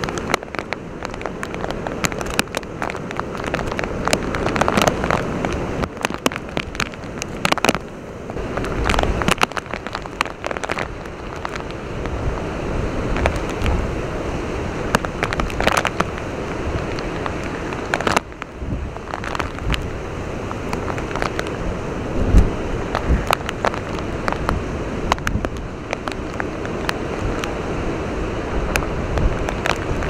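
Typhoon wind and heavy rain over a storm-tossed harbour: a dense, steady rush of wind and choppy water against the quay wall, thick with sharp crackles of rain striking. A few low thumps stand out, the strongest about 9 and 22 seconds in.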